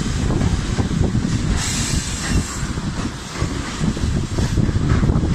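Train wagons rolling past close by, a steady heavy rumble with irregular knocks from the wheels over the rail joints.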